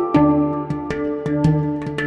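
Background music: a rhythmic instrumental piece with pitched notes over a steady beat.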